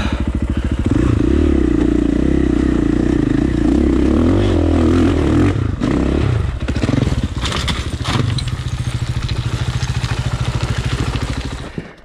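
KTM 450 XC four-stroke single-cylinder dirt bike engine revving hard under load while climbing a rocky gully. About six to eight seconds in, it gives way to several knocks and clattering as the bike hits rock, before the engine runs on more steadily at lower revs.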